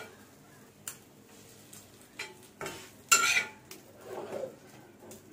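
Metal spatula scraping and tapping on a flat tawa griddle as pieces of fried egg are lifted off it, a few separate clicks with the loudest scrape about three seconds in.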